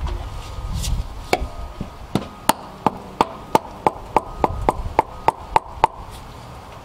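Hammer tapping through a cloth on a Mercedes M272 engine's thermostat housing to break it loose from its seal: about fifteen sharp taps, roughly three a second, stopping about a second before the end.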